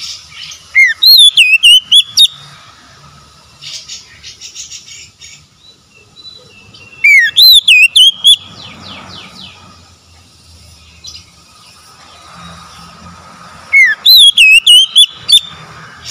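Oriental magpie-robin singing: three loud phrases about six seconds apart, each opening with a rising whistle that sweeps up into a quick warbling run of clear whistled notes, with softer chirps and trills in between.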